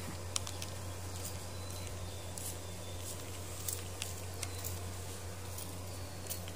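Hand trigger spray bottle spritzing fabric conditioner onto a cloth car seat: a run of short, sharp spritzes, about ten in all, over a steady low hum.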